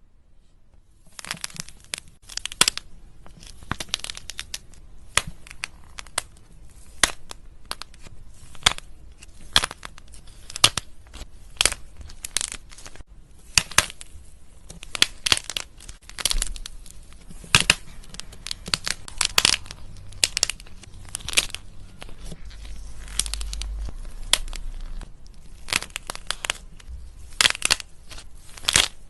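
Slime being squeezed, pressed and stretched by hand, giving a dense run of irregular crackles and sharp pops that starts about a second in.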